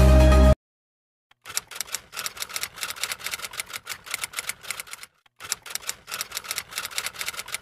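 Electronic music cuts off about half a second in. After a short silence comes a typewriter-style typing sound effect: rapid key clacks in two runs, with a brief break just past halfway.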